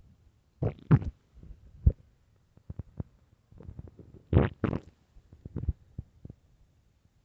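Loud stomach growls from an empty stomach: irregular short gurgles and rumbles coming in bursts, the loudest cluster about four and a half seconds in.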